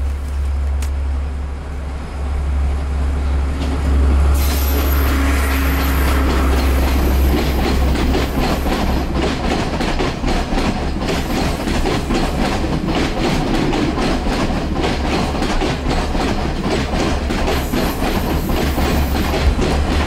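A diesel passenger train approaching and running past close by, with a deep rumble. From about four seconds in, the carriages' wheels clatter over the rail joints in a quick, steady clickety-clack.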